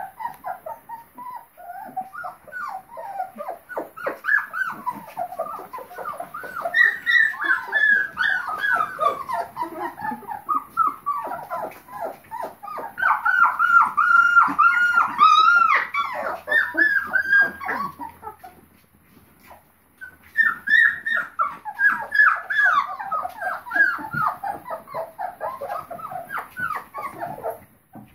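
Litter of Labrador Retriever puppies, about three and a half weeks old, whimpering and crying: a near-continuous run of short, high cries that fall in pitch, several at a time, loudest in the middle and pausing briefly about two-thirds of the way through.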